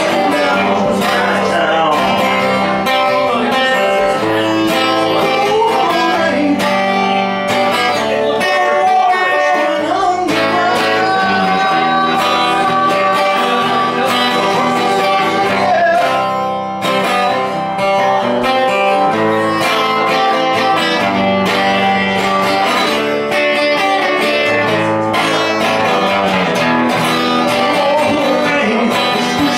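Live song performed on acoustic guitar, strummed and picked, with a woman singing.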